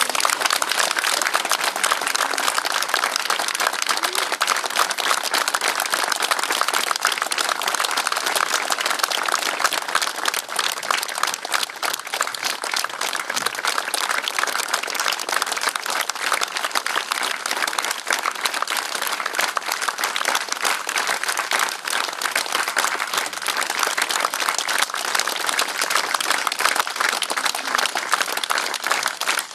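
A crowd applauding: many hands clapping together at a steady level.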